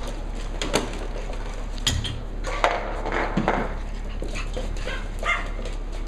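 Cavalier King Charles spaniel puppies at play, giving short yips and whines. A few sharp knocks and clatters come from toys and paws on the wooden floor.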